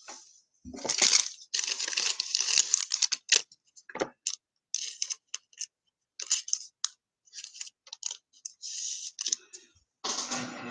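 Trading cards and their plastic sleeves being handled: a run of short rustling, sliding and scraping bursts with a few clicks, busiest in the first three seconds, then coming and going.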